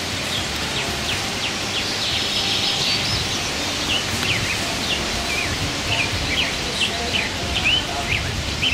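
Songbirds singing: a quick run of short high chirps and whistles that sets in about a second and a half in, over a steady outdoor hiss.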